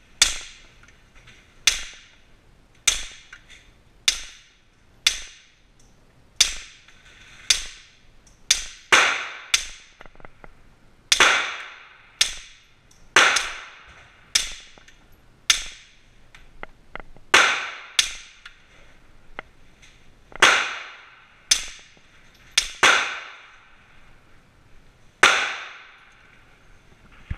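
Suppressed 9mm Smith & Wesson M&P9L pistol fired in a steady string of about two dozen shots, roughly one a second with a few quicker doubles, each crack followed by a short ringing echo of the indoor range. The shots pause briefly near the end, then one more comes.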